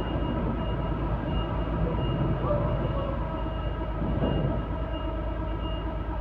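Heavy machinery running steadily: a low rumble with a steady hum made of several tones and a faint on-off high whine.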